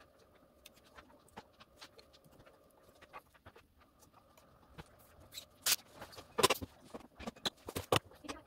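Scattered light clicks and taps over a faint steady hum, getting louder and more frequent about five seconds in.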